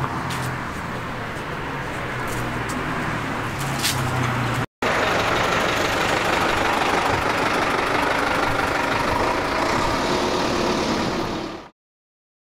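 Street traffic noise with motor vehicle engines. A steady low engine hum runs under the noise at first, then after a brief break the noise is louder and fuller. It cuts off to silence near the end.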